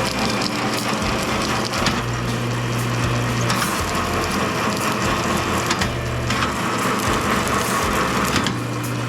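A machine running without a break. A steady low hum alternates every couple of seconds with a harsher, brighter sound, as though a load comes on and eases off.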